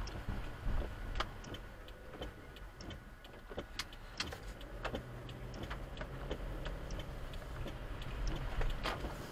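Car driving slowly through town, heard from inside the cabin: a steady low engine and road rumble with scattered sharp clicks and taps at uneven intervals.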